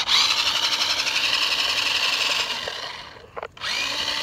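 Remote-control car's electric motor and gears whining at speed. The whine fades away about three seconds in, drops out for a moment, then rises and runs again.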